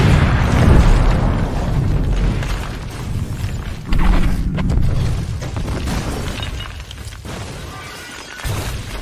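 Explosion sound effect: a sudden loud boom with crashing, shattering debris and a low rumble that slowly fades, with further crashes about four seconds in and again near the end.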